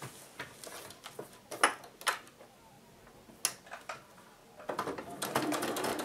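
Fabric being handled and smoothed with a few soft knocks and rustles, then an electric sewing machine starts stitching about three-quarters of the way in, a fast, even run of needle strokes.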